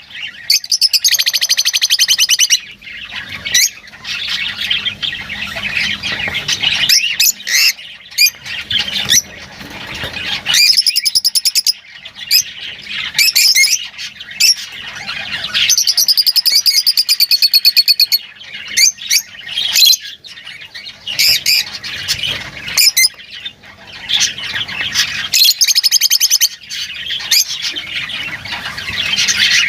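Lovebirds chattering and squawking without pause, high twittering chirps overlapping. Four louder, rasping bursts of a couple of seconds each come near the start, about 11 s in, about 16 s in and about 26 s in.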